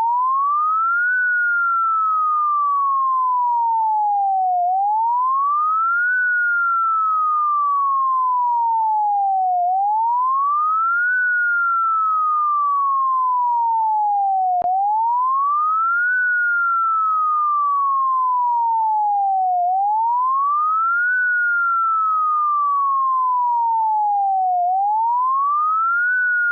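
Computer-generated emergency evacuation alarm tone made to imitate a standard evacuation siren: a single pure whistle-like tone that rises quickly and then falls slowly back, repeating about every five seconds.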